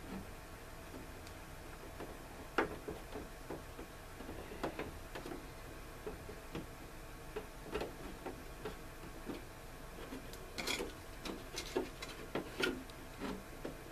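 Irregular small clicks and taps of hard plastic model-kit parts being handled and pressed together by hand, coming thicker near the end.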